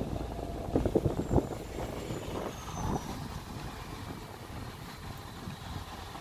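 Mercedes-Benz Citan Tourer driving slowly along a dirt track, heard with the microphone held out of the window: a steady low rumble of tyres and engine, with a few thumps about a second in.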